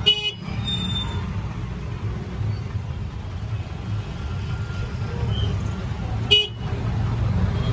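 Busy market-street traffic heard from a riding electric rickshaw: a steady low rumble of engines and road noise, with a short horn honk right at the start and another about six seconds in.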